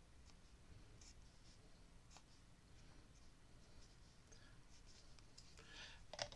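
Faint scratching of a twig dipped in ink drawing short strokes on paper. Near the end comes a brief rustle and a sharp click, the loudest sound.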